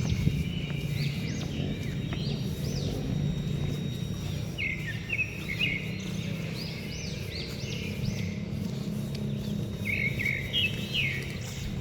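Small birds chirping: quick repeated high arched chirps, in busier clusters about five seconds in and again near the end, over a steady low hum.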